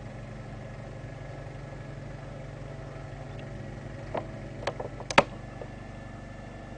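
Wheel Horse C-145 garden tractor's single-cylinder engine running steadily while its two-stage snow thrower works through deep snow. A few sharp clicks and knocks come about four to five seconds in, the loudest just after five seconds.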